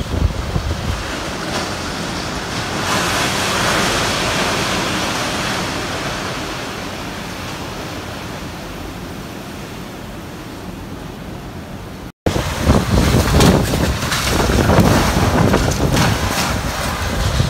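Typhoon wind rushing steadily, swelling a few seconds in and then slowly easing. After a brief cut about twelve seconds in, it comes back louder and gustier, with the wind buffeting the microphone.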